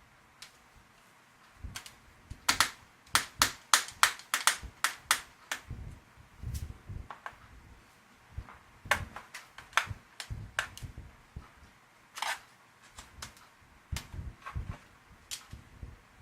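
Sharp plastic clicks and snaps, coming in quick clusters, as a stuck part of a Lenovo ThinkPad P50 laptop is pried and worked loose.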